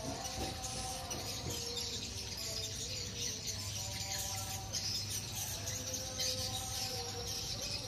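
Swiftlets chirping, a dense high twittering, over a few lower held notes.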